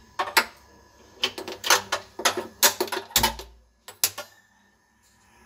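Sharp clicks and taps of a metal utensil knocking against a steel plate, about a dozen over the first four seconds, with a dull low thump about three seconds in.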